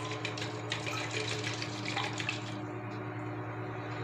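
Wooden hand churner (mathani) spun back and forth between the palms in a steel bowl of curd and water, churning it into buttermilk: quick wet sloshing and clicking, softer after about two and a half seconds. A steady low hum runs underneath.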